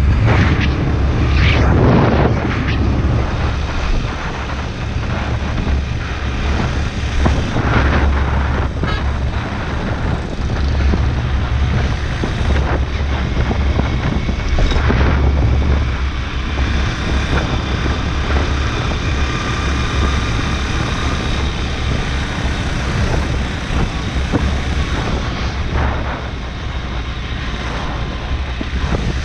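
Wind buffeting the microphone of a moving motorbike, with the bike's engine and road noise underneath as a steady low rumble. It is loudest in gusts over the first few seconds.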